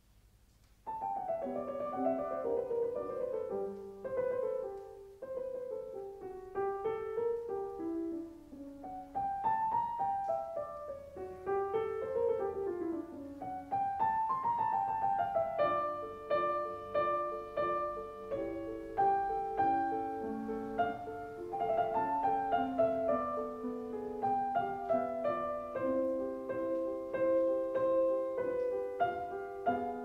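Piano music, a melody over chords, starting about a second in.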